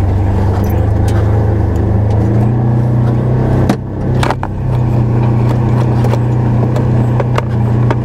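Polaris Ranger XP1000 side-by-side's twin-cylinder engine running steadily under way, heard inside its closed cab. The engine note steps up a little after two seconds and drops off briefly a little before the middle, with a few knocks and rattles from the cab.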